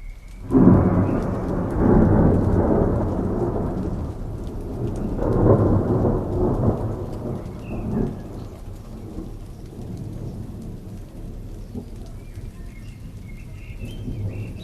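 Thunder rumbling over steady rain. The rumble starts about half a second in, swells again twice and fades into the rain hiss, with faint bird chirps near the end.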